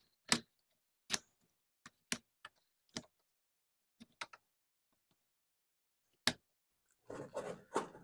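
Sharp metallic clicks from a hand tool working the carburetor mounting screws of a Husqvarna 455 Rancher chainsaw, about ten of them spaced irregularly. Near the end comes a short stretch of rattling.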